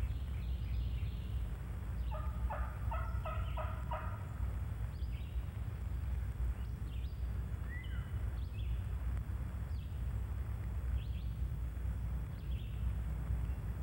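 Wild turkey tom gobbling once, a fast rattling call about two seconds in that lasts about two seconds: a gobbler coming in to the hunter's calling. Small songbird chirps sound here and there afterwards over a low steady background rumble.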